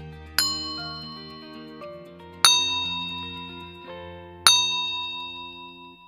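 A bell sound effect dinging three times, about two seconds apart, each ring fading slowly, over soft background music with held notes.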